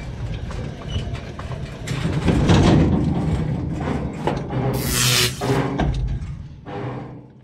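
Electric UTV creeping forward on a dirt lot: a steady low drivetrain hum and whine with chassis creaks and knocks, and a brief burst of hiss about five seconds in. The sound fades out at the end.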